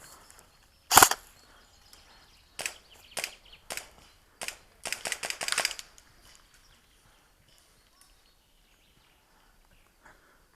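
Airsoft rifle shots: one loud sharp crack about a second in, a few single shots, then a quick burst of about seven shots, then quiet outdoor background.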